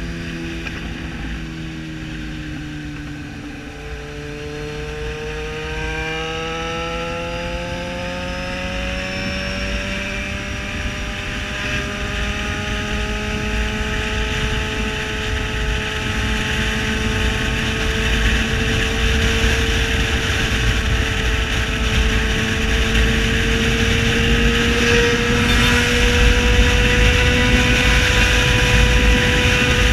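Yamaha XJ6 Diversion's 600 cc inline-four engine running under way. Its pitch drops over the first three or four seconds, then climbs slowly and steadily and grows louder as the bike gathers speed.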